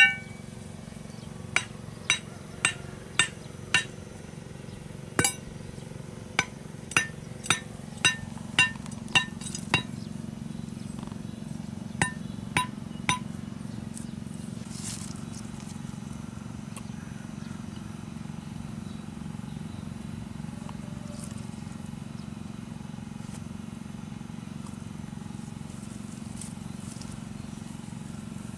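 A machete blade knocking a small stake into dirt: sharp metallic clinks with a short ring, about seventeen blows in quick runs, which stop about halfway through. A steady low hum lies underneath throughout.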